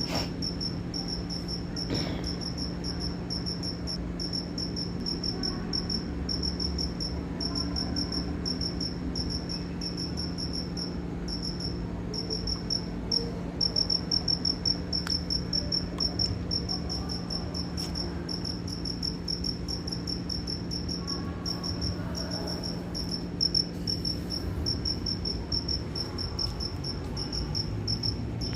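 Cricket chirping steadily: a high, pulsed cri-cri repeated several times a second, over a low steady hum.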